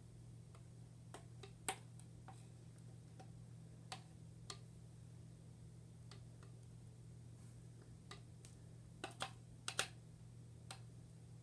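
Faint scattered clicks and small taps from sticky slime being handled, over a low steady hum, with a quick cluster of clicks about nine to ten seconds in.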